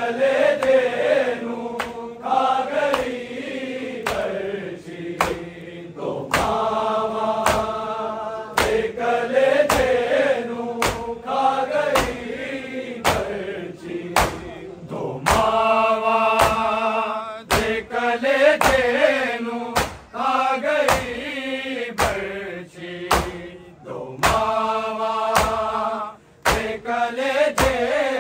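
Men chanting a Punjabi noha, a Shia lament, with a lead voice and a chorus, over a steady beat of sharp slaps about twice a second, the rhythm of matam (chest-beating).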